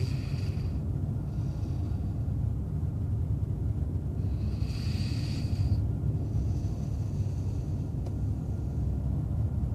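A sleeping man snoring: hissing, whistling breaths about every five seconds, the loudest about four and a half seconds in, over the van's steady low rumble.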